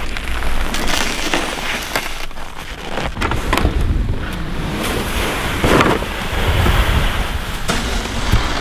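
Boots crunching and shuffling through deep snow, with wind rumbling on the microphone.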